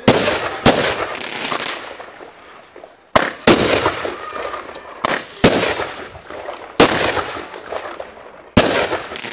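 Fireworks going off: about eight sharp bangs, a second or two apart and uneven, each trailing off into crackling.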